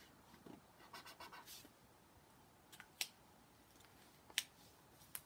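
Faint scratching of a felt-tip marker colouring on paper, in a few short strokes about a second in, followed by a few light clicks.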